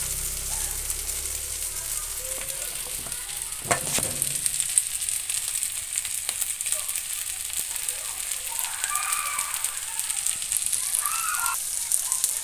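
Fried rice sizzling and crackling in a frying pan, with a single sharp knock about four seconds in.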